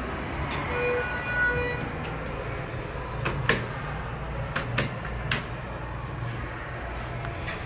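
Elevator chime sounding two short notes about a second in, then a few sharp clicks as the floor button in the car of a Schindler 330A hydraulic elevator is pressed, over a steady low hum.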